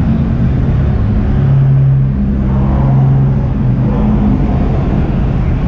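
Car engines running at idle, heard as a steady low drone that shifts pitch slightly a couple of times.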